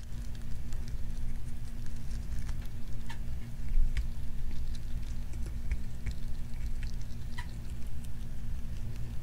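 A pet rat chewing and nibbling a mushroom held in its paws, heard close up as a quick, irregular run of small wet clicks and crunches. A steady low hum runs underneath.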